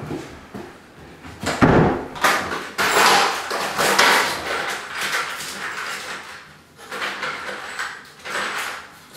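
Rummaging through hardware for a wall anchor: irregular rustling and clattering, loudest about two seconds in.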